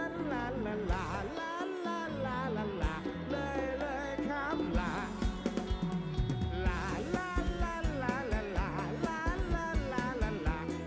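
Live rock band heard through a concert PA: a man singing over electric guitars and bass, with a steady drumbeat of about two hits a second coming in about seven seconds in.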